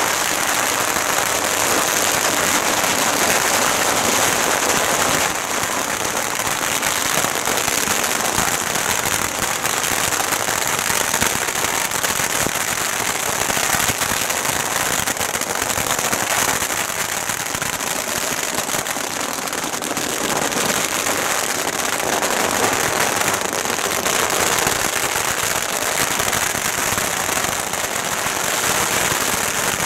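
Long strings of firecrackers going off in a continuous, dense crackle of rapid bangs.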